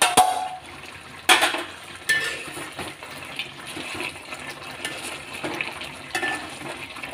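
A metal spoon stirring and scraping goat head pieces in thick masala in a cooking pan. There are sharp metal clanks at the start and about a second in, then softer scrapes and clinks of spoon on pan. The dish is being cooked down in its own water.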